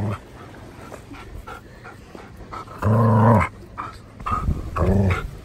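Belgian Tervuren dog play-growling and panting while mouthing a person's arm, with two loud half-second growls, about three and five seconds in, and softer huffs between them.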